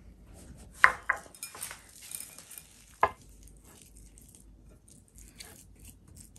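Sharp glass-on-glass clinks, twice about a second in and once more about three seconds in, as a small glass dish of chocolate chips knocks against a glass mixing bowl. Then a spatula stirs and scrapes a thick peanut-butter dough in the glass bowl, quietly.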